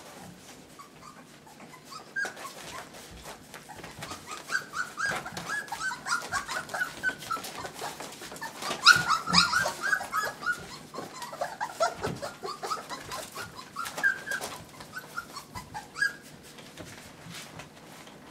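Nursing puppies squeaking and whimpering as they suckle from their mother, a busy stream of many short high calls that is loudest about halfway through and thins out near the end.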